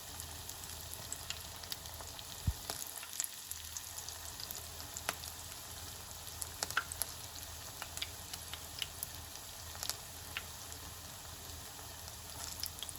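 Vegetable Manchurian balls deep-frying in hot oil on medium-low heat: a steady sizzle with scattered pops and crackles, and one sharper click about two and a half seconds in.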